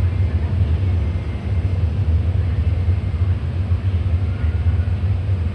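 A steady low rumble with a fainter even hiss above it, with no clear events.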